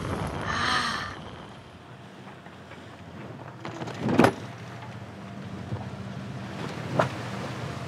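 Sailing catamaran under way and motor sailing: wind and water noise over the steady low hum of the auxiliary engine. A sharp knock comes about four seconds in, and a smaller one near the end.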